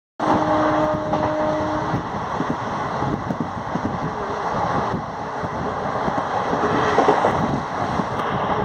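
Running noise of a passenger express train travelling at speed, heard from inside a coach near an open window: a steady rush of wheel and rail noise mixed with wind. It starts abruptly, and a steady hum-like tone sounds over the first couple of seconds.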